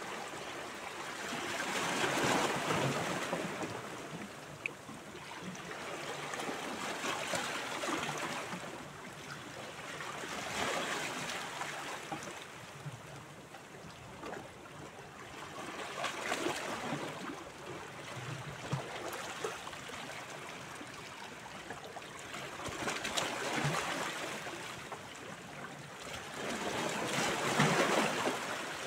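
Small sea waves washing against shoreline rocks, each wash swelling and falling back every few seconds.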